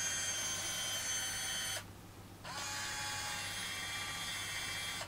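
YSL Rouge Sur Mesure lip colour creator running as it mixes and dispenses a custom lipstick shade: a steady mechanical whir with many high tones. It pauses briefly about two seconds in, then runs again and stops near the end.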